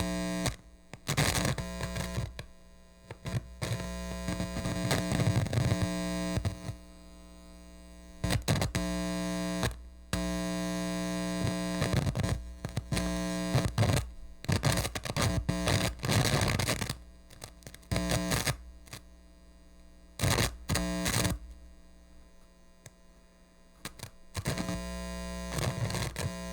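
Radio static: a steady electrical hum under hissing, crackling noise that surges in irregular bursts and stretches, then drops back, over and over.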